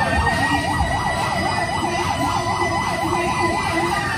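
Electronic siren yelping rapidly, about four cycles a second, over a second steadier siren tone that climbs, holds high and falls away as both cut out near the end.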